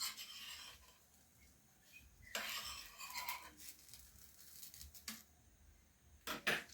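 Kitchen clatter: dishes and cutlery clinking and scraping in a couple of short bursts, with sharp knocks near the end.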